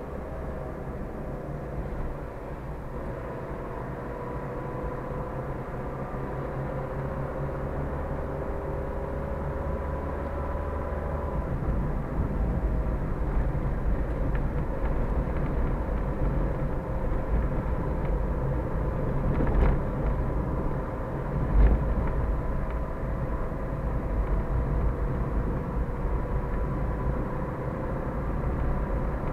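Steady engine and tyre noise heard from inside a moving vehicle, with a faint engine hum slowly drifting in pitch. The low road rumble grows louder about a third of the way in, and two short thumps come about two-thirds of the way through.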